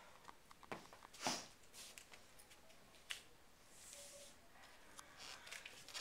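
Faint clicks and rustles of a handbag with a chain strap being handled, with a short louder rustle about a second in and a sharp click about three seconds in.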